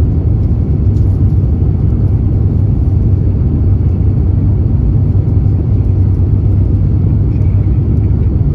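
Steady low roar of an Airbus A350-900's Rolls-Royce Trent XWB engines and rushing air, heard inside the cabin as the jet climbs out after takeoff.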